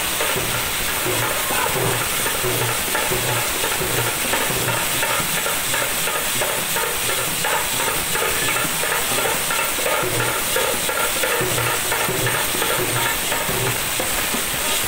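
Devotional bhajan music: a mridangam-style barrel drum played by hand in a steady beat of low strokes, with a harmonium holding tones, under a constant loud hiss-like shimmer.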